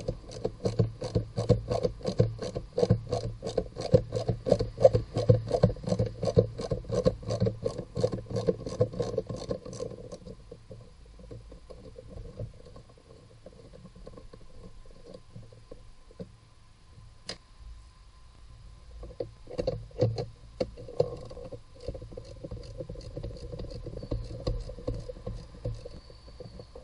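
Hand ratchet clicking in an even rhythm, about three or four clicks a second, for the first ten seconds as a fastener is worked, then stopping; after it, quieter handling of tools and parts with a sharp click and a few knocks.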